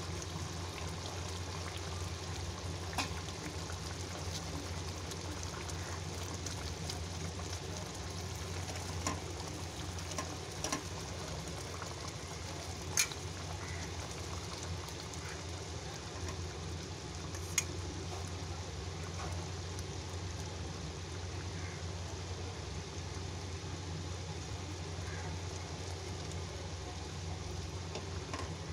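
Thick creamy curry gravy simmering in a nonstick pan: a steady bubbling hiss over a steady low hum, with a few light knocks of a silicone spatula against the pan as it is stirred.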